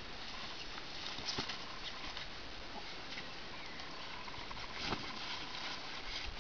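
Two French bulldog puppies wrestling inside a fabric play tunnel: scattered scuffs, paw scrabbles and rustles of the tunnel cloth over a steady hiss, with the loudest knock about five seconds in.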